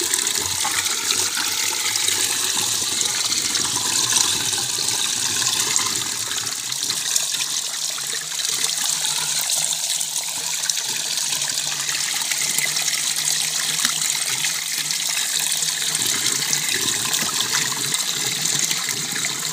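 Water pouring steadily from a pipe spout into a plastic barrel and splashing around a wire-mesh filter basket.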